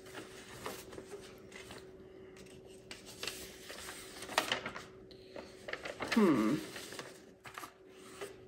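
Small clicks and rustles of objects being handled, over a faint steady hum, with a short falling murmur of a voice about six seconds in.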